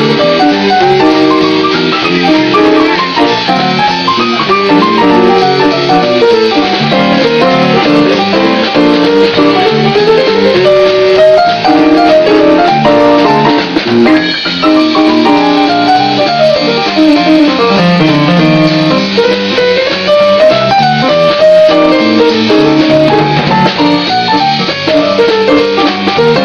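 Big band playing live, with saxophones and a drum kit.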